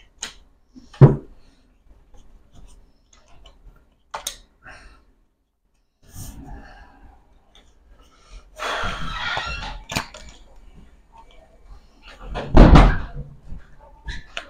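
Playing cards handled on a tabletop: cards swept together, a rustling run of the deck being shuffled a little past the middle, and small knocks. Two loud thumps of the deck hitting the table, one about a second in and one near the end.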